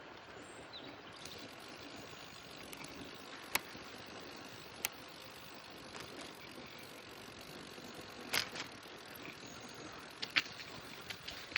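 Bicycle ride: a steady hiss of wind and tyre noise, broken by several sharp clicks or knocks from the bike, the loudest about eight and ten seconds in.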